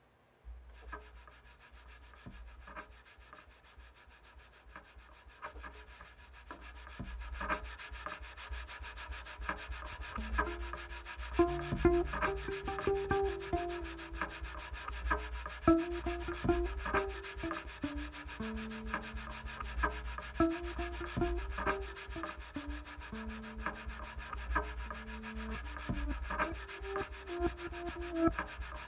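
Acoustic cello played through a loop pedal: a steady rhythmic rubbing and tapping on the cello's wooden body repeats as a loop. About ten seconds in, low held cello notes and a short repeating figure of pitched notes are layered over it.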